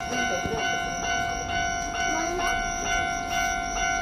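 Japanese railway level crossing warning bell ringing, repeating about twice a second with a ringing tone, over a low rumble.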